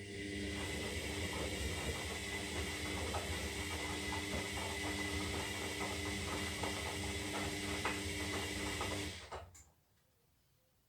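Zanussi Lindo 300 washing machine turning its drum during the wash phase of a synthetic cycle: a steady motor hum with hiss and faint scattered clicks from the tumbling load, stopping suddenly about nine and a half seconds in, the pause of the wash's tumble rhythm.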